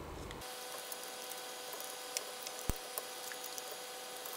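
Faint handling sounds of a small LCD display panel and its ribbon cable being fitted: a few small clicks and one soft knock about halfway through, over a steady low hiss and faint hum.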